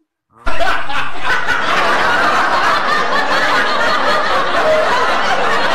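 Canned laughter: a crowd laughing, cutting in abruptly about half a second in and staying steadily loud.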